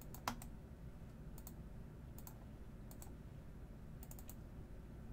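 Scattered clicks of a computer mouse and keyboard, several in quick pairs, the loudest about a third of a second in and a short run of them about four seconds in.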